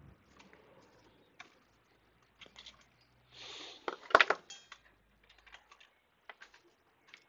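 Scattered light clicks and clatter of small tools being handled on a workbench, with a louder rattling clatter about four seconds in.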